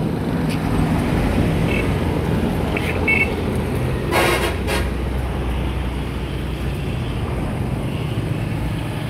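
Steady low rumble of vehicle traffic, with one brief pitched call about four seconds in.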